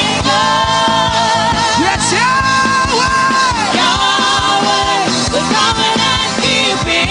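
Gospel worship music: a voice sings long, held notes with vibrato that slide between pitches, over a steady drum beat.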